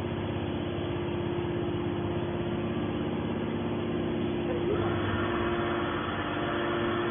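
Hydraulic scrap baler's power unit (electric motor and hydraulic pump) running with a steady hum and fast even pulsing. More high-pitched noise joins about five seconds in.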